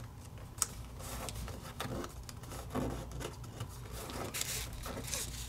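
Paper rustling and creasing under fingertips as a sheet is folded and pressed flat: faint, scattered soft crinkles and small clicks.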